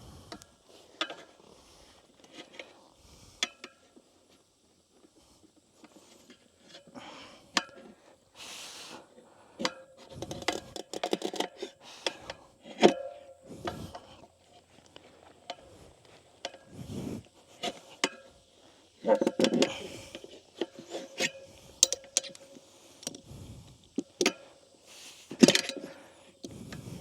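Tire spoons clinking and scraping against a motorcycle wheel rim as the first bead of a tire is levered onto it. The clinks are scattered and irregular, mixed with short rubbing scrapes.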